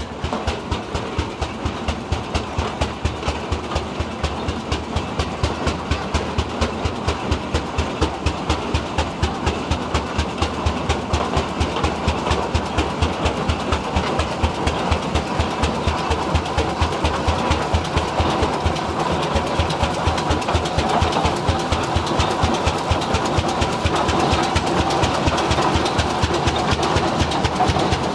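Rumely OilPull tractor's kerosene-burning engine running at a slow, steady beat of about three exhaust pulses a second, getting a little louder toward the end as the tractor draws near.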